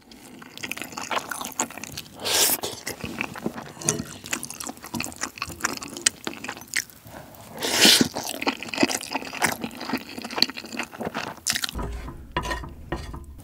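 Close-miked chewing and wet mouth sounds of eating spicy instant ramen soaked with rice and tuna. Two short, louder slurps come about two and eight seconds in. Near the end a spoon scrapes the pot.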